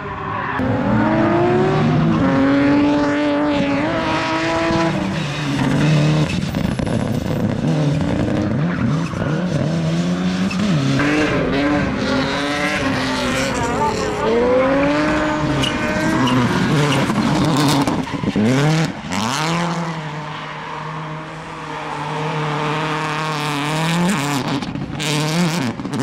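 Competition cars driven hard on a track, first a red BMW drift car and then a Subaru Impreza WRC rally car. Their engines rev up and fall back again and again through quick gear changes and throttle lifts, with tyre squeal.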